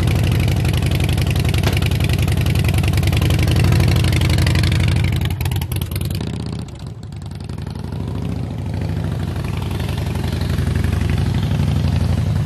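Harley-Davidson V-twin motorcycle engine running, then pulling away. It fades about six seconds in and grows louder again toward the end.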